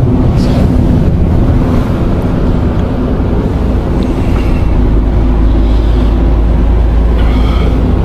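Car driving on a rural road, heard from inside the cabin: steady engine and tyre rumble, with a deep rumble growing heavier about halfway through.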